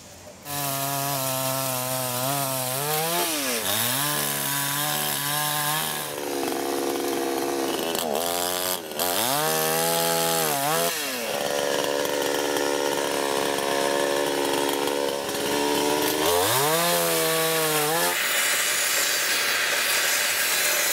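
Chainsaw engine running and revving up and down again and again, cutting into a fallen log. Near the end the sound changes to a different power saw cutting wood.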